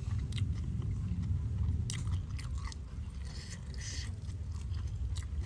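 A person chewing food close to the microphone, with scattered crunches and small wet clicks.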